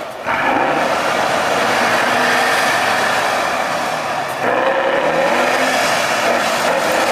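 Tatra 813 trial truck's engine revving hard under load, the revs rising sharply just after the start and again about four and a half seconds in.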